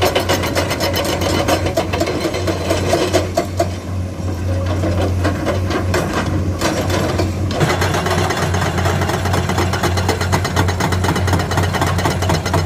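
Heavy excavator's diesel engine running steadily under load, with a dense, rapid metallic clatter over it that eases about four seconds in and picks up again just before eight seconds in.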